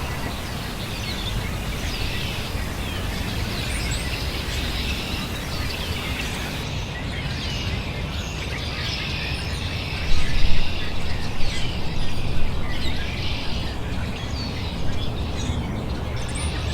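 Songbirds chirping and calling: many short chirps overlap throughout, over a steady low background rumble that grows louder for a few seconds about ten seconds in.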